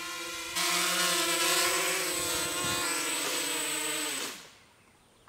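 Small quadcopter's motors and propellers whirring in flight. The whir gets louder about half a second in, then drops in pitch and winds down near the end as the quad comes in to land.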